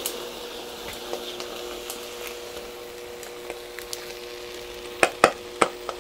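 Egg and imitation crab sticks sizzling on the hot plates of an electric waffle maker, with a faint steady hum under the hiss. A few sharp clicks come about five seconds in.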